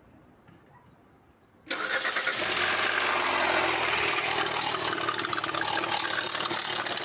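Hyundai Santa Fe V6 engine starting about two seconds in, then running with a dense, fast clicking clatter. The mechanic puts the noise down to a pulley.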